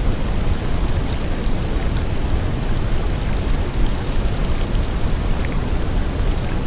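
Steady rain ambience: an even hiss with a deep rumble underneath and faint scattered drop ticks, unchanging throughout.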